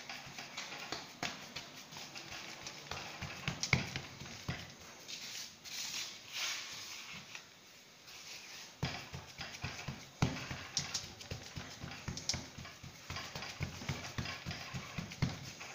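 Hands patting and pressing semolina dough flat on a steel tray, shaping a round mthakba flatbread: a run of irregular taps and slaps, with a short lull about halfway.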